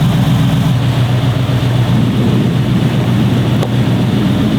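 Toyota Sequoia SUV engine idling, a steady low drone.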